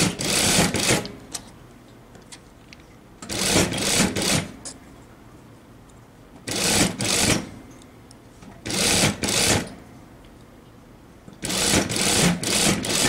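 Industrial sewing machine stitching a lace-trimmed bias strip onto a blouse edge in short runs: five bursts of about a second each, with pauses of about two seconds between them as the fabric is repositioned.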